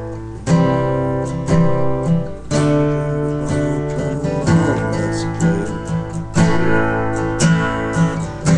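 Acoustic guitar strummed through a chord progression, with strong strokes about once a second and the chords changing every second or two.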